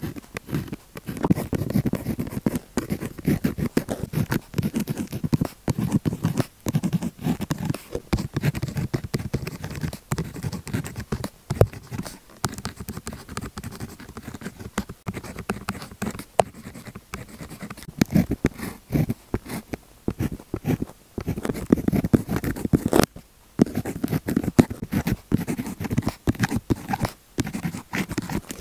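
Pilot Juice Up gel pen scratching across paper in quick, irregular strokes while colour swatches are drawn, with a brief pause about two-thirds of the way through.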